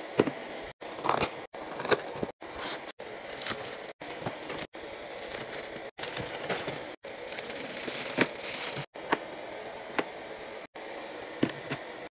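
Hands handling plastic-wrapped food packages and plastic storage baskets: crinkling wrappers and light plastic clicks and knocks as items and baskets are set down. The sound cuts out abruptly every second or so.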